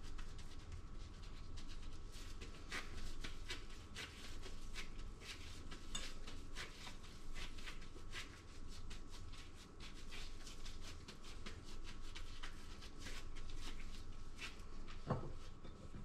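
Gloved hands working a ball of pie-crust dough: the plastic gloves rustle and crinkle in quick, irregular ticks against the dough and each other. A short falling squeak comes near the end.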